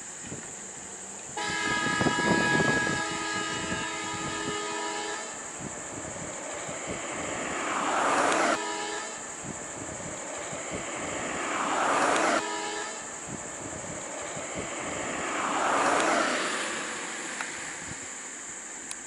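A bus's multi-tone horn sounds in one long blast of about four seconds, sounded at a wild elephant in the road. Fainter horn notes follow, along with three swells of engine noise that each build over a few seconds. Two of the swells cut off suddenly.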